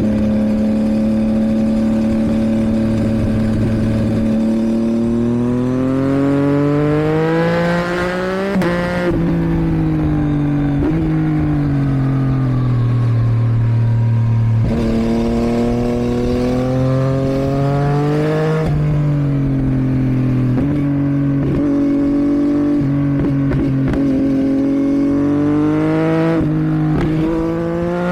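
2022 Yamaha MT-09's 890 cc three-cylinder engine through a Roadsitalia homologated exhaust, revving under load. Its note climbs steadily for about nine seconds, drops at a gear change and falls away, then jumps up and climbs again. It runs fairly level for a while and rises once more near the end.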